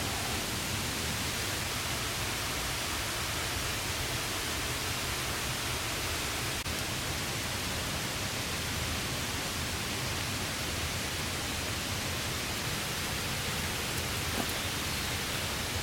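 Steady rain pattering on a camping tarp overhead, an even hiss with one faint tick near the end.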